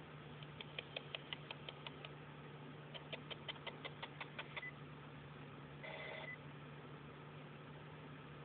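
Two quick runs of sharp electronic clicks, about six a second, then a short two-tone beep, all over a steady low hum.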